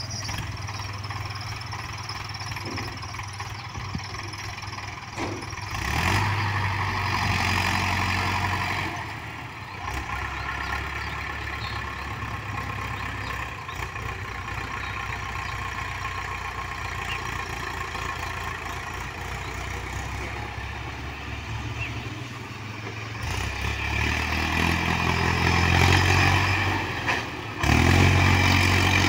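Mahindra Arjun Ultra 555 DI tractor's four-cylinder diesel engine running as the tractor drives, growing louder for a few seconds about six seconds in and again near the end.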